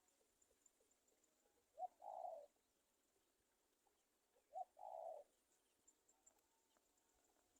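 Two faint, low cooing bird calls about three seconds apart, each a short note followed by a longer one.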